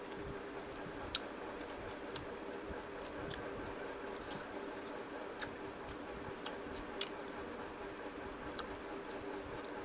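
Fingers mixing rice and curry on a stainless steel plate: soft squishing with occasional sharp clicks of fingers against the steel, over a steady low hum.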